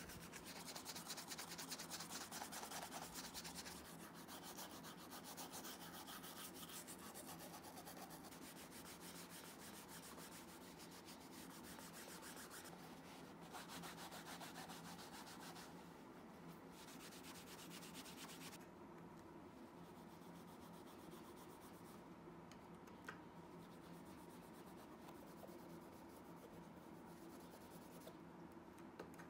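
Faint rubbing of a cloth over a leather shoe upper, a run of fast strokes that is strongest in the first few seconds and eases off about two-thirds of the way through.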